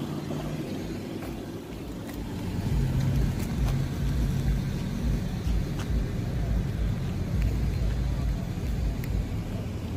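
A car engine idling with a deep, steady rumble, growing louder about three seconds in.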